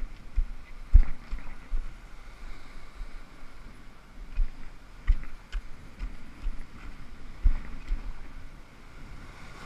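Ocean surf washing over shoreline rocks, a steady rushing wash, with wind buffeting the microphone in a few irregular low thumps.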